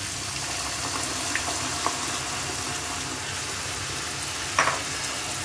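Chicken stock hitting a large pan of vegetables stir-frying on a high flame: a steady hiss of liquid sizzling, with a few light clicks, the clearest about four and a half seconds in.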